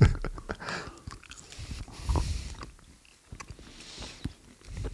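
A person biting and chewing candy close to the microphone, with irregular small clicks and smacks of the mouth.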